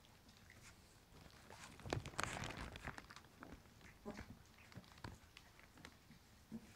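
A puppy licking food off its own paws: faint, scattered wet licks and smacks, busiest in the middle.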